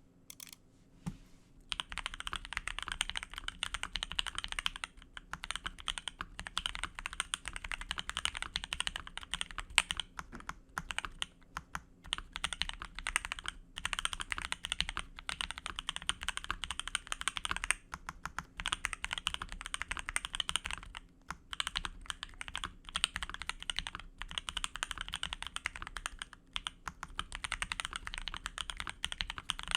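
Typing on an Akko MOD005 mechanical keyboard with lubed SP-Star Dark Magic Girl switches and lubed, clipped, holee-modded stabilizers. Fast runs of keystrokes start about a second and a half in and go on with brief pauses every few seconds.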